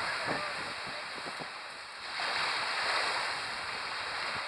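Sea waves washing onto the beach, the hiss of the surf swelling again about two seconds in.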